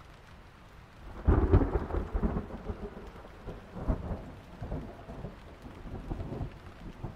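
Thunder starting suddenly with a crackle about a second in, then rumbling on in several rolling swells that die away, over steady rain.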